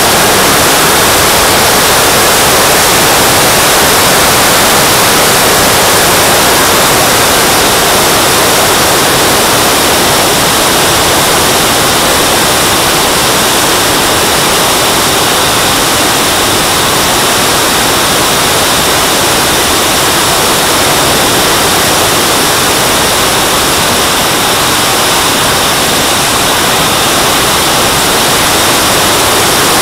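Loud, steady rushing hiss of a model jet's turbine (a JetCat) heard from a camera mounted on the airframe in flight, close behind the engine pod, mixed with wind rushing over the camera.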